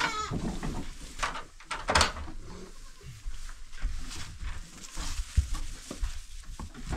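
Scattered knocks and bumps with rustling among goats in a goat pen. The loudest knock comes about two seconds in.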